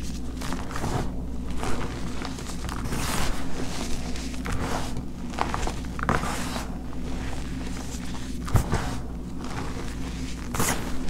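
Hands squeezing and scooping crushed chalk powder: a series of irregular soft crunches and powdery swishes, over a steady low hum.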